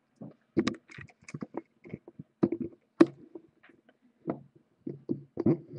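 Handling noise from a camera being moved and repositioned: irregular knocks, bumps and rubbing close to the microphone, the sharpest knock about three seconds in.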